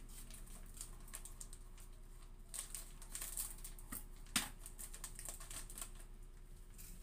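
Clear plastic bag crinkling as it is handled, with a run of light clicks and taps and one sharper knock a little after four seconds in.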